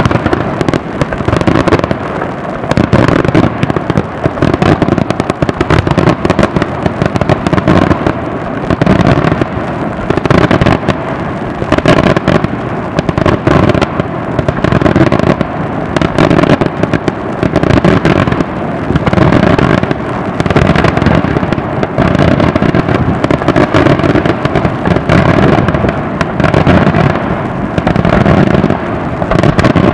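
Daytime aerial fireworks: a dense, continuous barrage of bangs and crackling reports, many per second, loud throughout.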